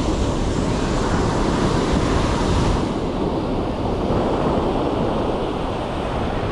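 Ocean surf washing onto the beach, with wind buffeting the microphone. The higher hiss of the surf thins out about three seconds in.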